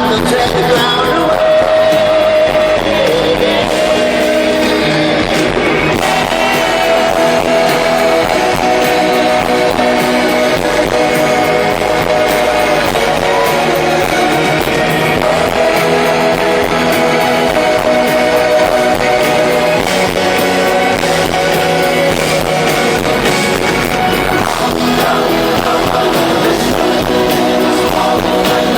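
Live pop-rock band playing with male lead vocals holding long sung notes over guitar, in a large hall.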